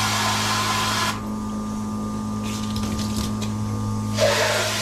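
Water spraying from a hydrobath's hand-held spray nozzle, a loud hiss that stops about a second in, then a second burst near the end as water is sprayed into a jug. A steady motor hum runs underneath.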